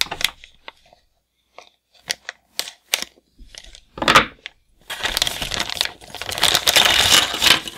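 Thin clear plastic bag crinkling in the hands in scattered short crackles, with a louder crackle about four seconds in. From about five seconds it is torn open in a continuous crinkling, ripping stretch.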